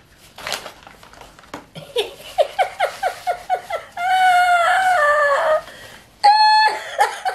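Faint rustling, then a woman's voice making about eight short, quick yelps and a long wavering note, with a brief high squeal near the end.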